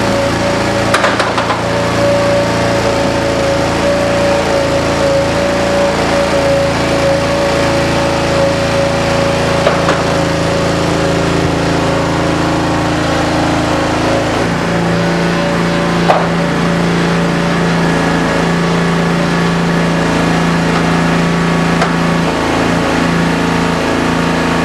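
16-hp V-twin Briggs & Stratton gas engine running steadily, driving the tire baler's hydraulic pump, with a steady tone above it. Its note changes about 14 seconds in, and a few short knocks sound over it.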